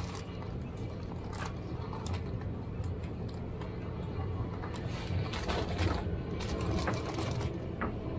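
Grocery store ambience: a steady low machine hum, with scattered light clicks and packaging rustles throughout.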